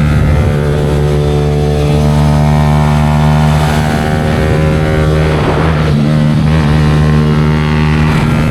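Yamaha R15 V4's 155 cc single-cylinder engine running through an aftermarket Leo Vince exhaust at a steady engine speed, its pitch holding level. A short burst of noise cuts in about five seconds in.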